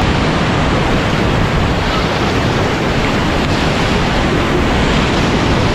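River whitewater rushing and churning around an inflatable raft as it runs a rapid: a loud, steady rush of water.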